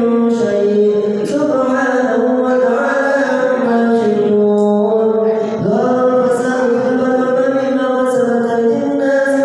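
A man's solo voice chanting an Islamic melody in long, ornamented held notes that waver and glide between pitches, with a brief break a little past halfway.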